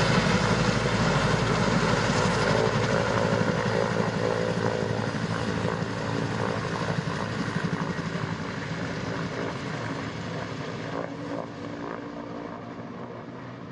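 A steady, loud mechanical drone like an aircraft engine, starting abruptly and slowly fading.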